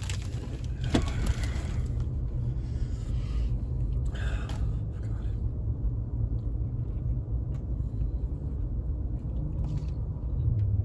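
Car engine idling, a steady low rumble heard inside the cabin, with brief rustling and chewing noises as a burger is bitten into about a second and four seconds in.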